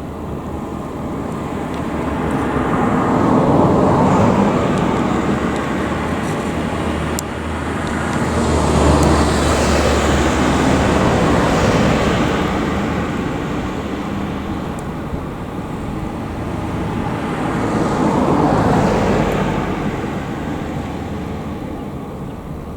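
Road traffic: vehicles passing one after another, each one swelling and fading, three passes in all.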